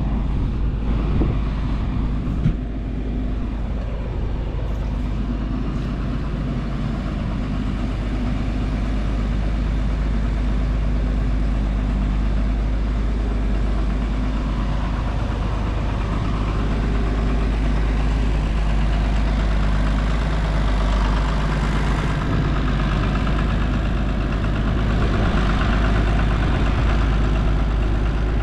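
Farm tractor engine running steadily, close by.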